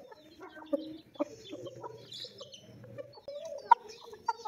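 Chickens clucking, a run of short calls with a longer one about three-quarters through, with faint high chick peeps. A single sharp click near the end is the loudest sound.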